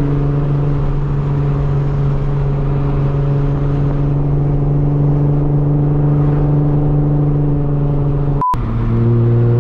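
Nissan 350Z's V6 engine running steadily under way, heard from inside the car. Near the end the sound breaks off for an instant and returns as a lower, slightly louder engine note.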